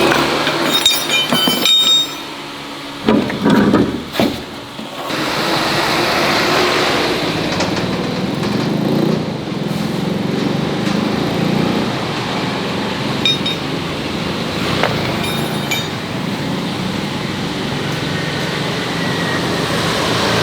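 A motor running steadily, with a few clicks and knocks in the first few seconds.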